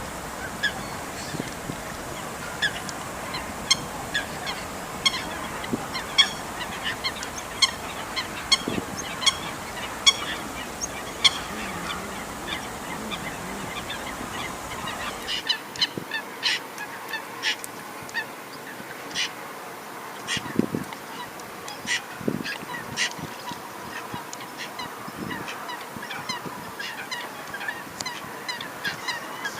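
Gulls calling: many short, sharp calls in quick succession over a steady background hiss. The low background rumble drops away about halfway through.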